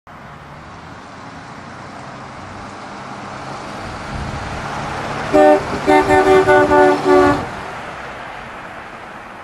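1948 Chrysler Town and Country convertible driving past, its inline-eight engine running and growing louder as it approaches, then fading as it goes by. A little past halfway its horn sounds once and then gives a quick run of short toots.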